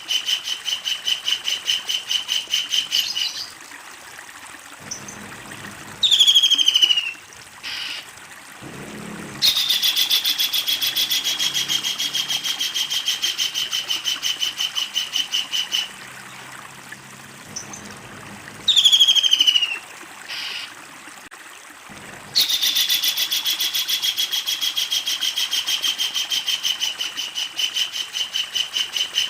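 A kingfisher calling: long, fast runs of loud repeated notes, about five a second, in three bouts. Between the bouts come short, loud falling calls.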